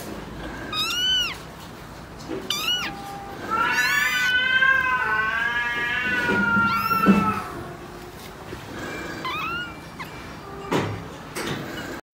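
Young kitten mewing: two short high mews, then a long wavering meow lasting several seconds, then two more short mews.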